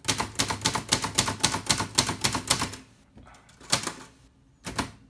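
Hispano Olivetti Studio 46 manual typewriter typing the number row: a quick run of keystrokes, about six a second, for nearly three seconds. Then a pause and a couple of single strikes.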